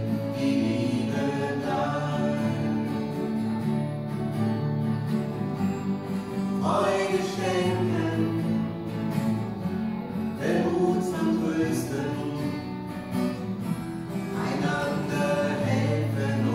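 Live gospel worship song: singing with acoustic guitar accompaniment.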